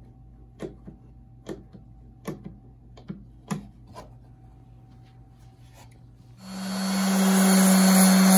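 About six sharp clicks over the first few seconds as an Irwin Quick-Grip bar clamp is squeezed tight on the axe. About six seconds in, a Craftsman random orbital sander switches on and runs with a steady hum and loud whir, ready to thin the wooden axe handle.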